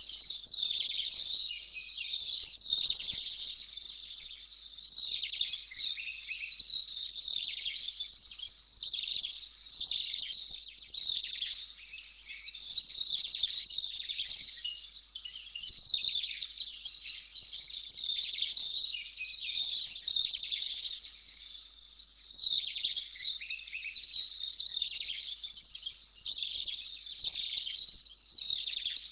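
Many birds chirping and twittering together in a continuous chorus of short, overlapping high calls.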